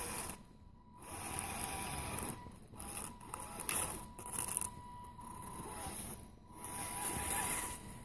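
Axial SCX10 RC crawler's electric motor and geared drivetrain whirring with a thin whine as it crawls through snow, in several spurts with brief stops between them.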